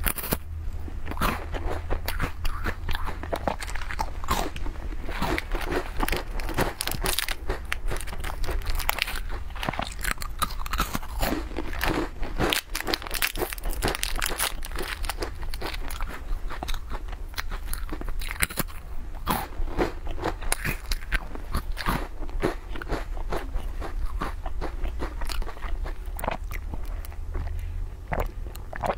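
Close-up crunching and chewing of small crisp snack biscuits, dense sharp crunches throughout, with crinkling of a plastic snack wrapper as one is unwrapped partway through.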